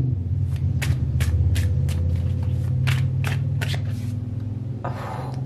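Tarot deck being shuffled by hand: a run of short card snaps, about three a second, then a brief sliding rustle near the end. A steady low rumble runs underneath.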